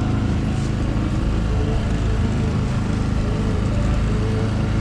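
The boat's outboard engine running steadily at cruising speed, with water rushing along the hull and waves slapping the bow.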